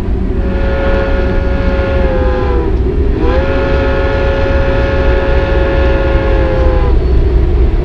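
Freight locomotive's air horn sounding two long blasts, the second longer, each dropping in pitch as it cuts off, over a steady low rumble.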